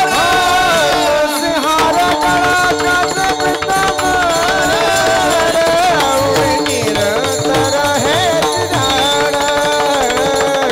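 Marathi devotional abhang music: a wavering, ornamented melody over a steady sustained tone, with drum and percussion keeping a rhythm.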